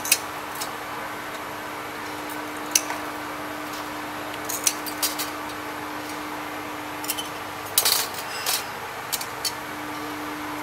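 Thin glass, about half a millimetre thick, being snapped off with pliers and dropped into a cardboard box. Sharp snaps and small glassy clinks come singly and in short clusters, busiest around the middle and about eight seconds in, over a steady low hum.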